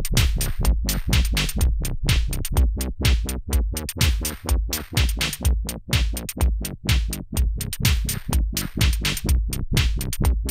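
Electronic drum pattern from a Dave Smith Tempest with a Roland System-1m synth line. The line runs through a filter into the Mutant Hot Glue compressor, which is sidechained to the kick drum, so the mix pumps in level in time with the kicks. The compressor's blend and gain knobs are being turned, changing the mix of compressed and dry signal.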